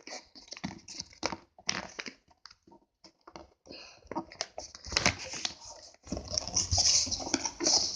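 Sheet of paper being handled and folded into a paper airplane: irregular crinkles and rustles as the folds are pressed, becoming a denser, steadier rustle near the end.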